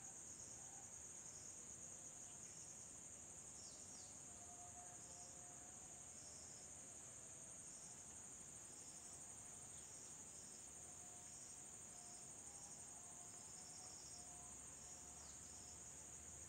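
Near silence: room tone with a faint, steady high-pitched insect chirring and short repeated pulses just below it.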